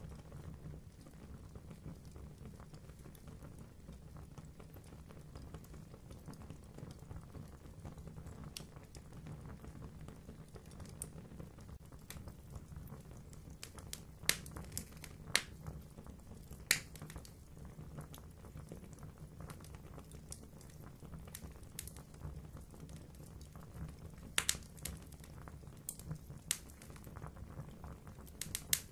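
Fire crackling in a fireplace: many small ticks over a low steady rumble, with a few sharp, louder pops about halfway through and again near the end.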